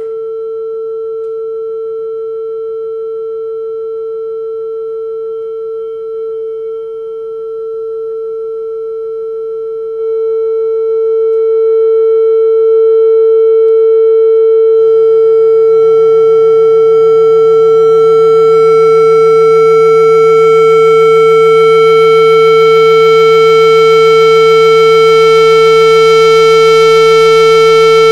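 Loudspeaker playing a steady sine tone at a wine glass's resonant frequency, holding one pitch, with the glass vibrating along with it. About ten seconds in the tone jumps louder as the amplitude is turned up. From about fifteen seconds it grows harsher, with added overtones and a low buzz, as the glass is driven hard.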